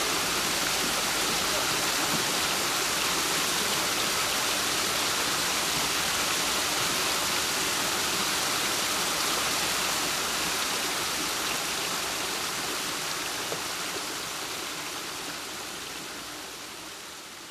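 Water rushing through the sluices of a river lock: a steady, dense rush that fades gradually over the last several seconds.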